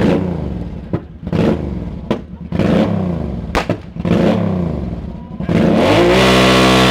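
Motorcycle engine with a loud exhaust being revved in a series of sharp throttle blips, each dying back between them, then held at high revs in a steady loud note for the last second or so.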